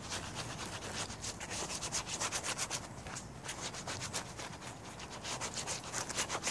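Hands rubbing a damp grey squirrel hide back and forth on a plastic tarp, working tanning solution into it, in quick scratchy strokes several times a second.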